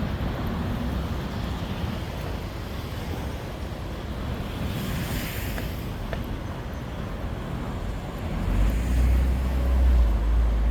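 Street traffic ambience: a steady wash of passing vehicles. A deep low rumble swells in about eight seconds in and grows louder near the end.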